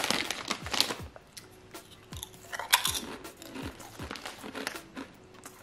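Someone chewing a mouthful of Tyrrell's hand-cooked potato crisps close to the microphone, a run of sharp crunches in quick, irregular succession.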